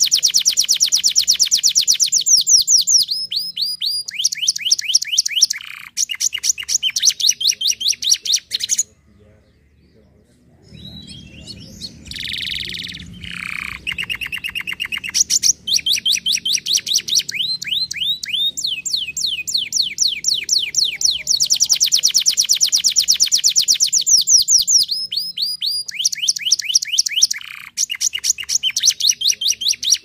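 Domestic canary singing: long runs of fast repeated notes in rolling trills, changing from one trill to the next, with a short break about nine seconds in.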